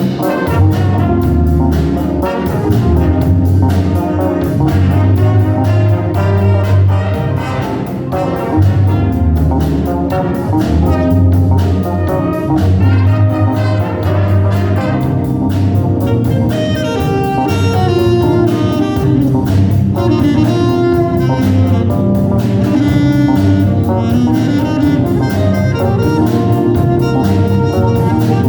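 A band playing a jazz number, with saxophone and brass carrying the tune over bass and drums.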